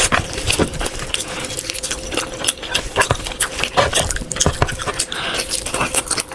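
Close-up eating sounds: wet chewing and smacking, with a quick, irregular run of clicks and smacks over a faint steady hum.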